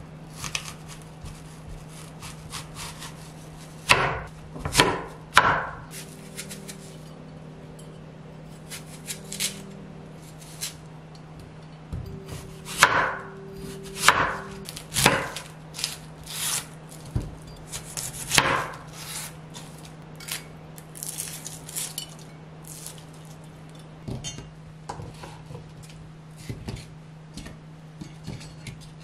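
Scattered knocks, taps and short scraping strokes of objects being handled on a hard surface, over a steady low hum. The knocks bunch up twice, the busier run about halfway through, and a faint steady tone sounds twice.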